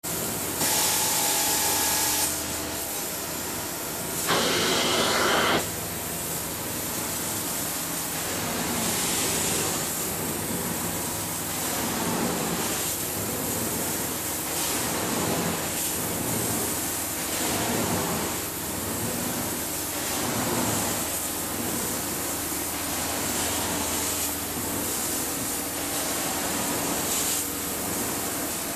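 Carpet extraction wand (a modified ProChem wand on a truck mount) hissing with suction as its head is stroked back and forth over the carpet. The rush swells with each stroke, about every one and a half seconds, with one louder stretch about four seconds in.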